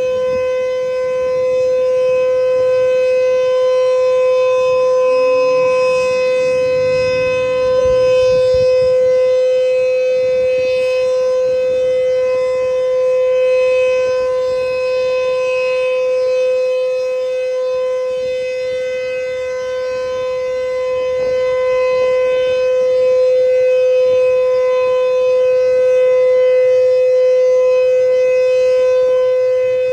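Sentry 3V8HB outdoor warning siren sounding a steady tone at one unchanging pitch, its loudness slowly swelling and fading.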